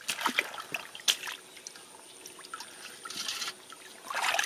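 Shallow water splashing and trickling as a plastic basket and hands move through it, with a few sharp splashes near the start and about a second in, and a louder rush of water near the end.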